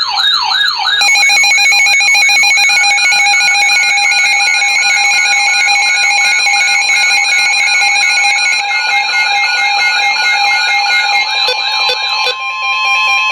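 A warbling electronic siren tone, joined about a second in by the steady two-tone Emergency Alert System attention signal. Near the end the warble and two-tone drop away, leaving a single steady tone that cuts off abruptly.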